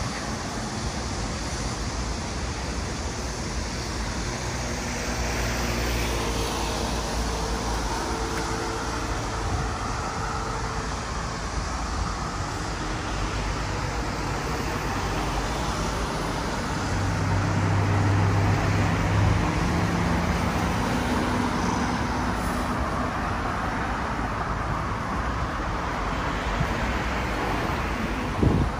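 Road traffic on a rain-soaked road: a steady rush of tyres on wet asphalt, with the hum of passing vehicles rising and falling and loudest a little past halfway. A sharp knock comes near the end.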